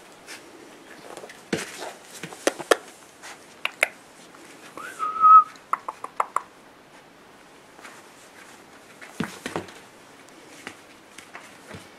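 Soft clicks and rustling as a whippet puppy mouths a hand on a duvet. About five seconds in comes one short high whistle-like tone that rises, then holds, followed by a quick run of clicks.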